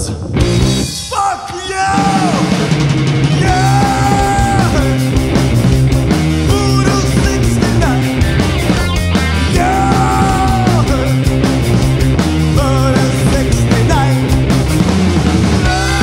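Rock band playing live: drum kit, electric bass and electric guitar, with long held notes over a steady beat. The band drops out briefly about a second in, then comes back in full.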